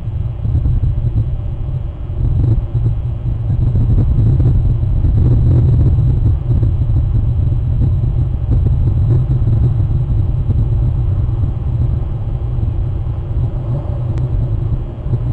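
Wind buffeting an outdoor camera microphone: a loud, steady low rumble that flutters in strength.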